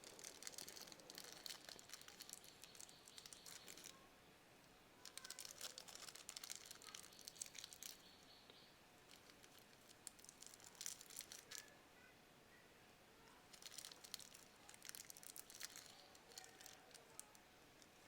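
Faint rustling and crinkling of small earphone cable pieces and parts being handled, in several short bursts of light crackles and tiny clicks.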